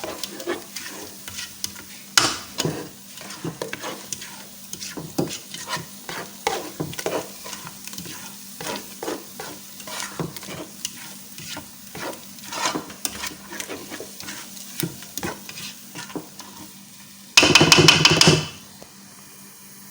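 A spoon stirring and scraping egusi in a pot as it cooks down, with irregular scrapes and clicks over a faint sizzle. Near the end comes a much louder, harsh scrape lasting about a second.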